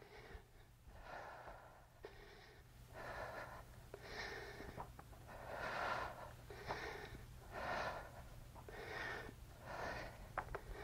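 A woman's heavy breathing as she exercises, a faint breath puffed out about once a second in an even rhythm.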